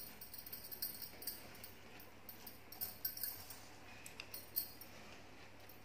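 Faint, soft dabbing and brushing of a silicone pastry brush spreading butter over the crust of a freshly baked loaf, with small scattered taps against the metal tin under a low hiss.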